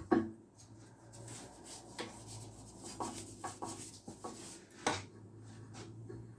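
Sharp metallic clicks and knocks from hand work on a steel welding table while an M10 thread is being cut, the loudest just after the start and about half a dozen more spread through, over a low steady hum.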